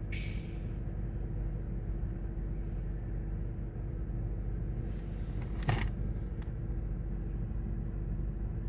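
Steady low rumble with a faint constant hum, broken once a little after halfway by a single sharp knock.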